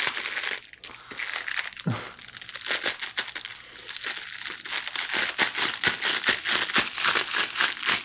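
Stiff mailer material of a homemade glove sewn from a Priority Mail envelope crinkling and crackling as it is tugged tight onto a hand. The crackles come thicker and sharper over the last few seconds.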